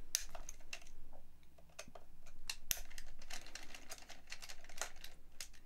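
Hand hex driver unscrewing the screws that hold the centre diff set in an RC truck chassis: a run of irregular light clicks and ticks, with one sharper knock about two and a half seconds in.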